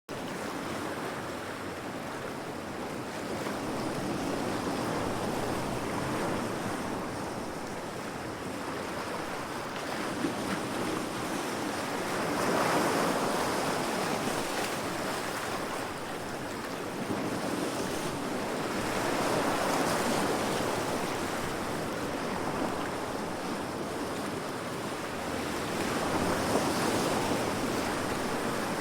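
Heavy ocean waves breaking against rocks: a continuous wash of surf that swells with a new wave about every six to seven seconds. It starts abruptly.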